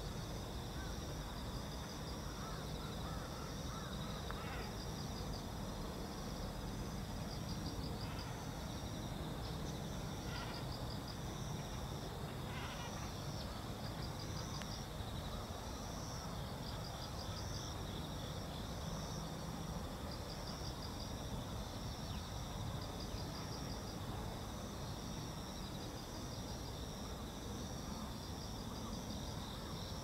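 Insects chirping: a steady high drone with a short pulsed chirp repeating every second or two, over a low, even background rumble. A few short calls come in during the first half.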